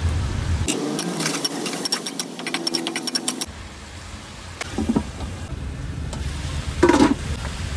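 Stir-frying on a gas burner: a steady low burner rumble. Over the first three seconds or so it carries many quick clicks and taps of a utensil, and a couple of louder clunks come later.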